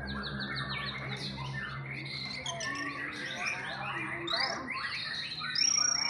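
Several caged white-rumped shamas (murai batu) singing at once in competition: a dense stream of overlapping whistles and chirps, with one long high whistle held near the end.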